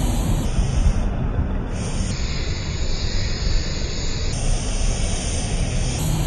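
Aerosol spray-paint can hissing steadily as it sprays, over a continuous low rumble.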